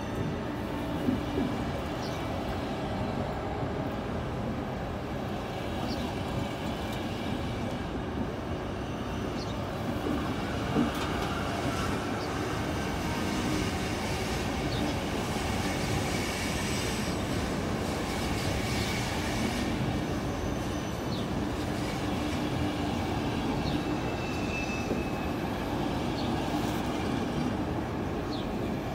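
Passenger coaches of a departing Czech Railways (ČD) EuroCity rolling past as the train gathers speed. The wheels click over rail joints and squeal faintly now and then, echoing under a glass station train shed.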